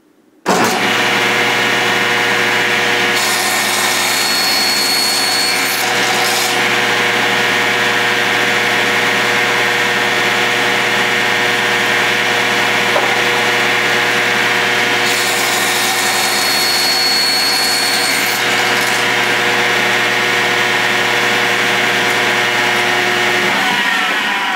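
Table saw switched on about half a second in and running with a steady motor whine, cutting two pieces off a 1¼-inch wooden dowel, each cut lasting about three seconds. Near the end the saw is switched off and its pitch falls as the blade spins down.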